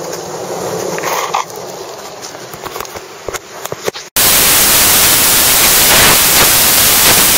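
Surf and wind on the beach, with a few knocks as the camera meets the sand. About four seconds in, a sudden, much louder burst of steady static hiss takes over.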